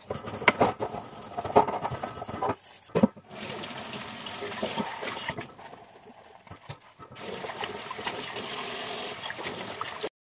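Kitchen tap running into a steel sink as dishes and a stainless steel saucepan are scrubbed and rinsed by hand, with sharp clinks and knocks of the dishes in the first few seconds.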